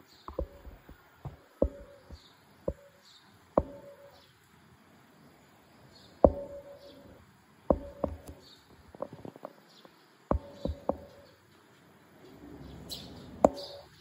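Irregular sharp knocks and clicks, about a dozen, several with a short ringing tone, from a smartphone with a clip-on telephoto lens being handled. Faint high bird chirps come in between.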